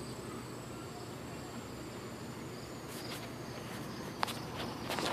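Insects trilling steadily at a high pitch over a low background rumble, with a few sharp clicks in the last two seconds.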